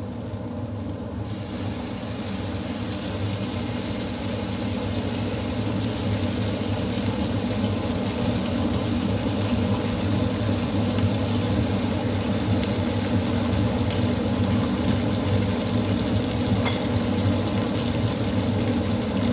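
Salmon frying in a pan, a steady sizzle over a low, even hum, growing a little louder over the first several seconds.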